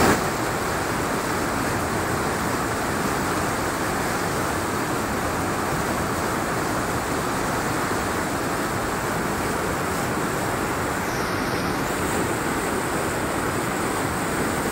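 Steady rushing of fast-flowing floodwater, an even noise without pauses.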